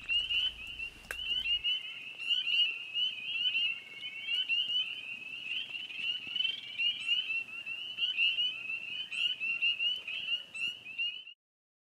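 A dense chorus of frogs calling: many short, high peeps and trills overlapping without a break, cutting off suddenly near the end.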